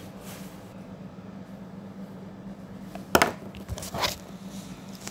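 Handling noise from plastic toys and slime: a loud knock and rustle about three seconds in and another about a second later, over a steady low hum.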